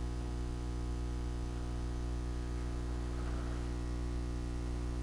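Steady electrical mains hum and buzz, a low drone with a stack of overtones above it, unchanging throughout.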